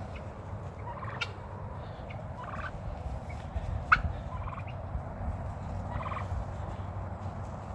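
Turkeys gobbling in several short rattling bursts, with a sharp click about four seconds in.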